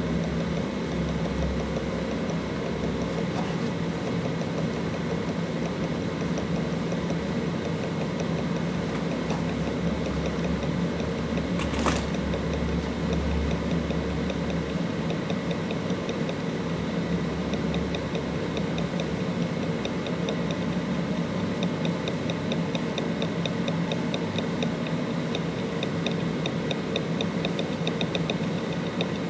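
Western Digital RE4-GP WD2003FYPS 2 TB 5400 RPM-class enterprise hard drive spinning with a steady hum while being tested in HD Tune. Its heads make a fast run of light, even ticks that grows clearer in the second half, with one sharper click about twelve seconds in.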